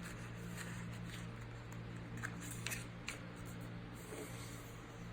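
Faint rustling and a few soft crackles of a sheet of paper being handled and folded into a paper airplane, over a low steady hum.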